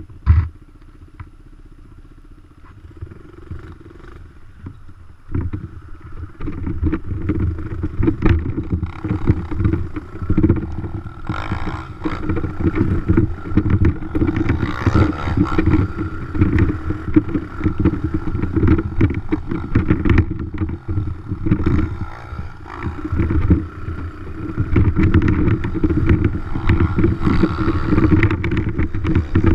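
Dirt bike engine, quiet at first, then much louder about five seconds in as the bike is ridden on, with the level rising and falling unevenly under changing throttle. A sharp knock comes just after the start.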